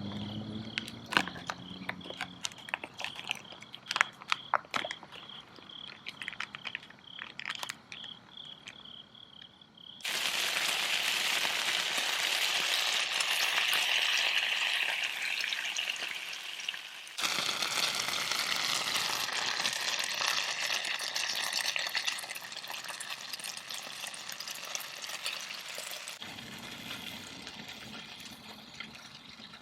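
Light clicks and knocks, then food frying in a pan: a loud steady sizzle that starts abruptly about a third of the way in, breaks and resumes, and drops lower near the end.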